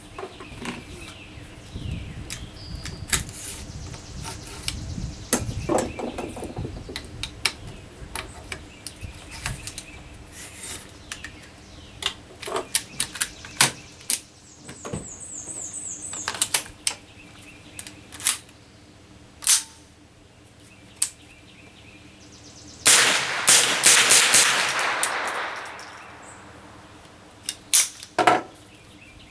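AR-15 rifle firing: scattered sharp reports and clicks, then a quick string of about six shots about two thirds of the way through that ring out for a couple of seconds, and two more shots near the end. Birds chirp faintly.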